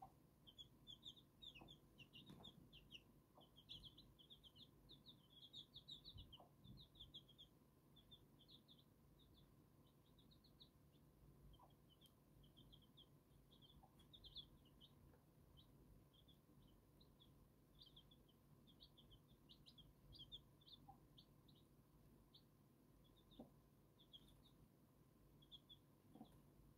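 Silver Laced Wyandotte chicks peeping: a steady stream of short, high chirps, busiest in the first several seconds and thinning out after, with a few faint taps.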